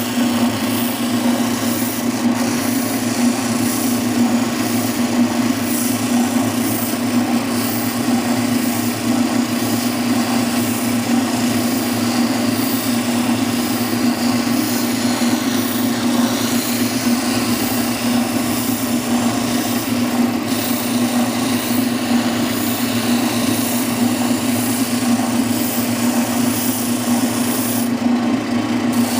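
Oscillating spindle sander running with a steady hum, its sanding drum rubbing against the edge of a panel blank as it is sanded to the line.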